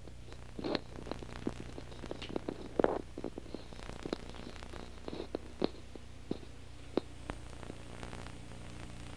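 Scattered soft knocks, clicks and rustles of a costumed child sitting back down in a chair and settling, the loudest about a second and about three seconds in, over a steady low electrical hum.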